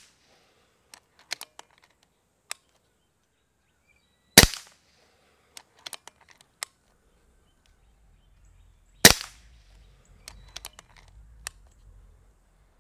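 Kral Puncher Breaker .22 PCP air rifle firing two shots about five seconds apart, each a sharp crack with a short ringing tail. Between the shots come a few light clicks as the rifle is cocked and the next pellet is loaded.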